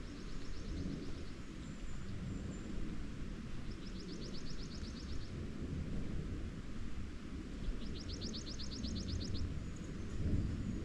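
A small songbird sings a rapid, even trill of high notes, about eight a second, three times, over the steady rush of a creek.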